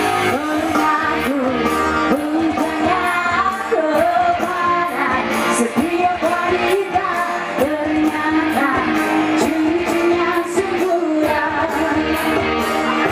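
A woman singing with a live band, her voice over a steady drum beat.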